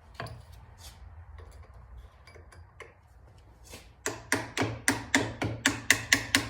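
Hammer striking a steel punch set in the BSA A65 clutch centre's screw hole, driving the clutch centre apart to get at the rubber cush-drive rubbers. A few faint taps, then from about four seconds in a fast run of sharp blows, about four a second, each ringing briefly.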